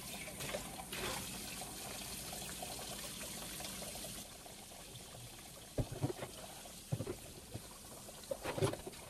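Kitchen tap running into a sink while dishes are washed by hand; the flow of water drops about four seconds in. After that come several clinks and knocks of dishes in the sink, the loudest near the end.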